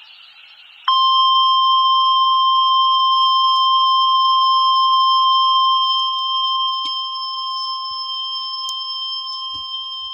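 NOAA Weather Radio 1050 Hz warning alarm tone: a single steady tone that starts about a second in and holds for about ten seconds, a little quieter after the first five. It signals that a warning message, here a tornado warning, is about to be broadcast.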